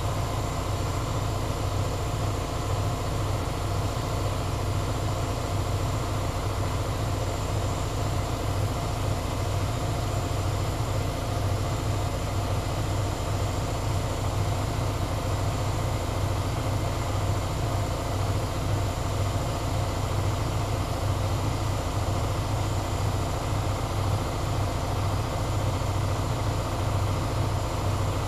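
Air compressor running with a steady, even drone and a strong low hum.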